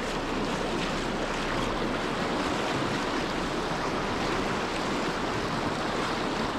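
River current rushing past, a steady, even noise of flowing water.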